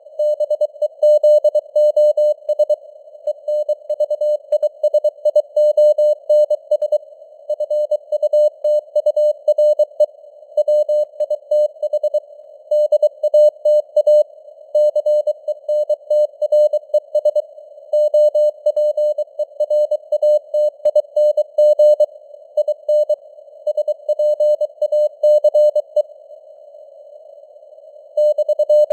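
Morse code (CW) sent at 23 words per minute: a single steady tone keyed on and off in dots and dashes. It sits over a narrow band of hiss that simulates receiver noise, with a pause of about two seconds near the end.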